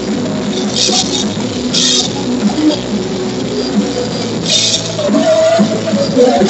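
Live rock band playing: drum kit with cymbal crashes about one and two seconds in and again later, over guitar and heavy bass. The bass is loud and distorted, blown out on the recording.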